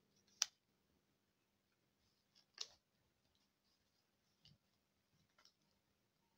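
A few light clicks and taps from handling embroidery floss skeins, in near silence. The sharpest comes about half a second in and another about two and a half seconds in, with fainter ticks after.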